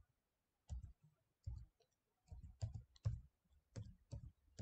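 Faint typing on a computer keyboard: about eight separate keystrokes, unevenly spaced, with a few quicker ones bunched near the middle.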